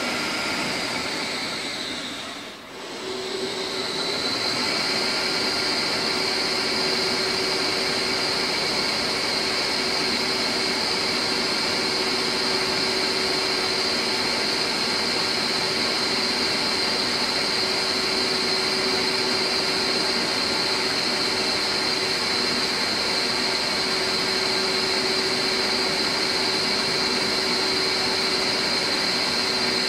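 CNC lathe running with a steady high-pitched whine over a loud rushing noise. About two seconds in the whine dips in pitch and level, then comes back up and holds steady, with a lower hum joining it.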